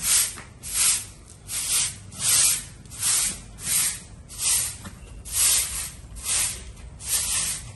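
Short straw hand broom swept in quick strokes over wet concrete, a rhythmic swishing about two strokes a second.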